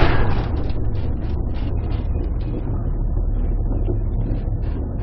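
Ship ploughing through heavy storm seas: a steady low rumble under rushing wind and water noise that surges unevenly, loudest in a sudden rush at the very start.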